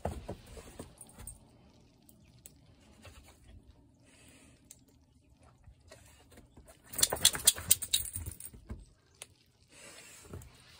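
A bullmastiff moving about in snow: soft scuffing for most of the time, then a burst of quick crunching and rattling about seven seconds in that is the loudest part.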